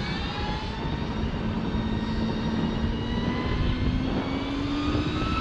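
KYMCO Ionex S7R electric scooter riding at speed: the electric drive's whine, several steady tones together, rising slightly in pitch toward the end, over a dense rumble of wind and road noise.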